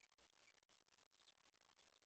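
Near silence: faint outdoor background hiss with a couple of faint, distant bird chirps.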